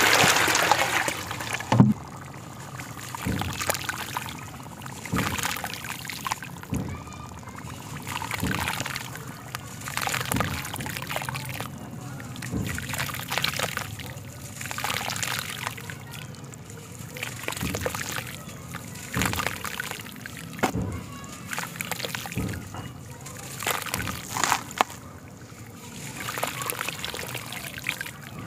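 Water poured from a jug splashing onto black sand in a plastic basin, loudest in the first second or two. Then crumbling lumps of black sand are broken by hand and fall into the water in repeated trickling, splashing bursts every second or two.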